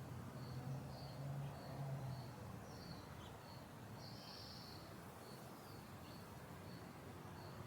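A cricket chirping in short, evenly spaced pulses about twice a second, over a low steady hum of suburban background noise that is a little louder in the first two seconds.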